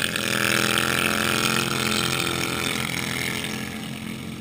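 Racing lawnmower engine running hard at steady revs as it passes close, then fading as it pulls away.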